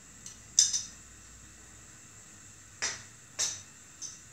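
A handful of sharp, light clinks of a utensil tapping against a cooking pot, the loudest a quick pair about half a second in and the rest single taps spread through the seconds after.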